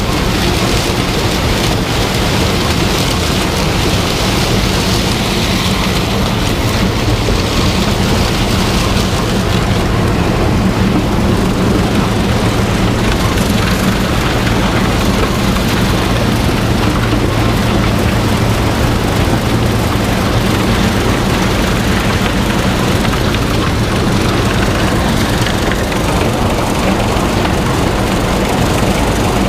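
Heavy diesel harvest machinery running steadily under load: a constant low engine hum under a loud, even rushing noise.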